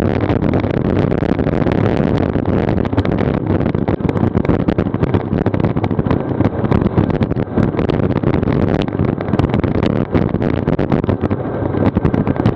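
Wind buffeting the action camera's microphone on a moving road bike: a steady loud rush with constant crackling gusts.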